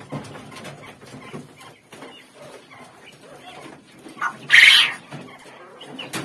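A young quail gives one short, loud cry a little past the midpoint, with a softer call just before it. Around it are low rustling and light knocks from birds being handled among wire cages.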